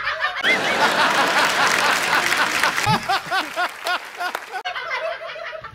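People laughing, then about half a second in a burst of studio-audience clapping and laughter from a TV comedy show, with a man laughing over it in short repeated bursts; the clapping cuts off sharply with about a second left, and laughing voices continue.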